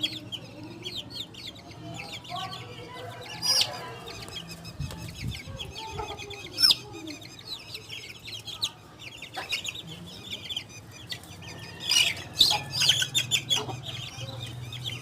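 A brood of Aseel chicks peeping continuously in quick high-pitched cheeps, with a few louder sharp calls standing out.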